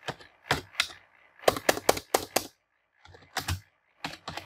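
Keystrokes on a computer keyboard, typed in short irregular bursts with brief pauses between them, the quickest run of keys about midway.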